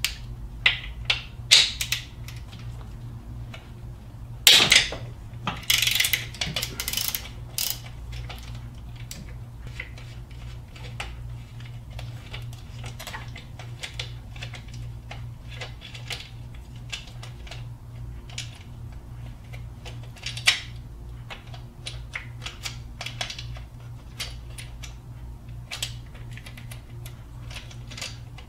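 Hand tools clicking, clinking and scraping on metal while an access plug is unscrewed from a 4.7L V8 engine to reach the upper chain tensioner bolt, with a louder scraping rattle about four to seven seconds in and a sharp click about twenty seconds in. A low steady hum runs underneath.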